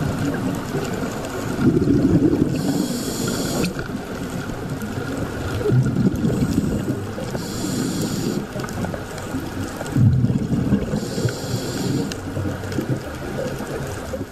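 Scuba diver breathing through a regulator. A short hiss on each inhalation alternates with a low bubbling rumble on each exhalation, about one breath every four seconds.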